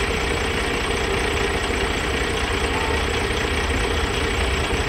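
An engine idling steadily, a continuous low drone.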